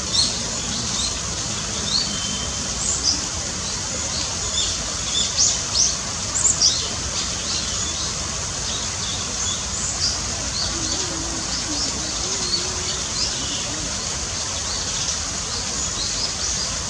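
A flock of Eurasian tree sparrows chirping, many short, high chirps overlapping, busiest in the first half, over a steady rush of falling water.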